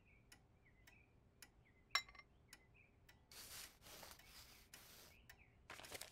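Faint clock ticking, about two ticks a second. A sharp clink rings out about two seconds in, and soft rustling starts a little after three seconds.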